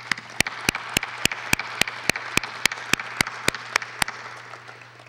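Audience applauding. One pair of hands claps loudly close to the microphone, about three or four claps a second, and stops about four seconds in while the rest of the applause dies away.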